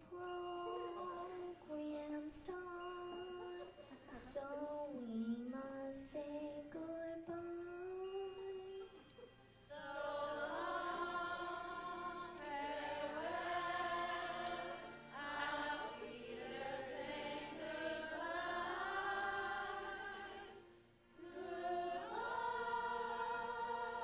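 A woman's solo voice singing a slow, gliding melody into a microphone, then from about ten seconds in several voices singing together as a chorus on long held notes.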